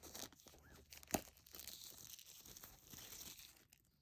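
Plastic shrink-wrap being peeled off a small retail box, crinkling and tearing, with one sharp crackle about a second in.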